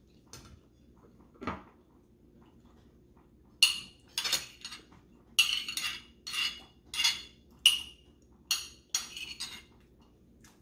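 Metal forks clinking and scraping against ceramic plates while eating: after a quiet start, a dozen or so sharp, bright clinks and short scrapes in an irregular run, stopping about a second before the end.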